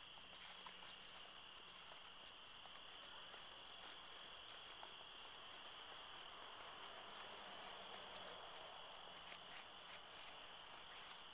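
Faint, steady outdoor insect chorus: a continuous high trill, with a fainter, higher pulsing trill above it. A few soft clicks come and go.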